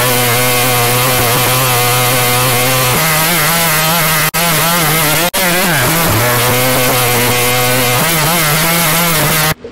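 A loud, harsh, buzzing synthetic text-to-speech voice holding the word "Junior" as one drawn-out, wavering note, a glitch in the speech synthesis. Its pitch steps up and down a few times, it drops out for an instant twice about four and five seconds in, and it cuts off abruptly near the end.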